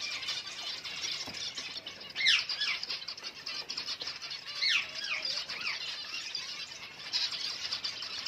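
A flock of zebra finches chattering: a dense, continuous high twittering, with a few louder sweeping calls about two seconds and five seconds in.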